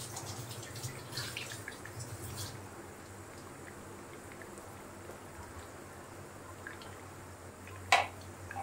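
Beef kababs shallow-frying in hot oil in a nonstick pan: the oil sizzling and crackling, busiest in the first couple of seconds, with one sharp click near the end.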